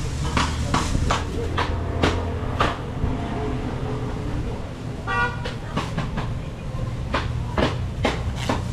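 Thin plastic bags crinkling and rustling in short bursts as they are pulled open and filled, over a steady low hum. A brief pitched toot sounds about five seconds in.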